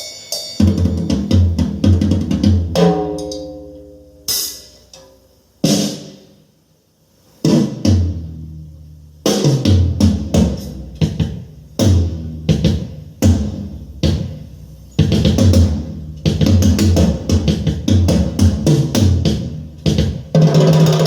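Drum-heavy music with strong kick drum and bass played back through an Eminence 12-inch neodymium loudspeaker. Single hits ring out in the first half, then a steady beat runs from about halfway.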